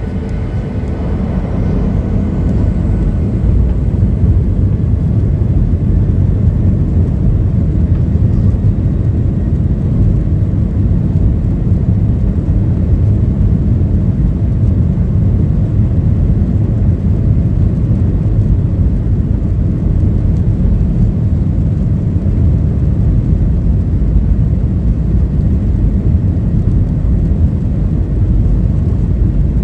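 Boeing 737-800's CFM56-7B jet engines at takeoff power, heard from inside the passenger cabin as a steady, loud low rumble. It builds over the first few seconds, then holds.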